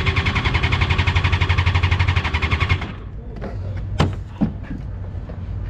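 Electric starter cranking the F1000 formula car's engine in a rapid, even chug for nearly three seconds without it catching, then cutting off suddenly. A couple of sharp knocks follow.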